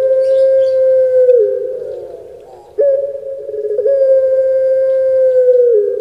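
Puter pelung (ringneck dove) cooing: long drawn-out low coos, each held steady and dropping in pitch at its end. One coo dies away about a second and a half in, and the next begins near the three-second mark, stepping up once before its long hold.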